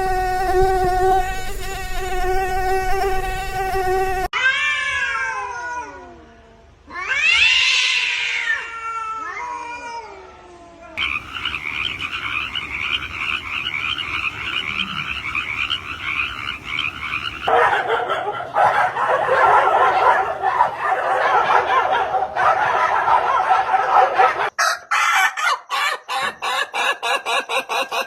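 A run of different animal sounds. First a steady insect buzz, then several wailing calls that fall in pitch, then a continuous chorus of chirps and trills, and finally a fast, evenly repeated pulsing call.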